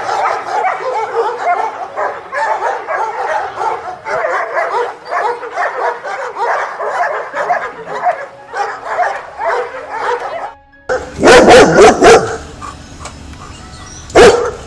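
Background music, then a German shepherd barking loudly at a gate: a quick run of about four barks, and one more bark near the end.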